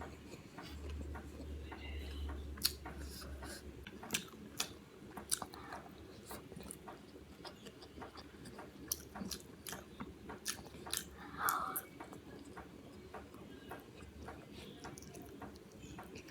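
Close-miked chewing of food, with irregular wet mouth clicks and smacks.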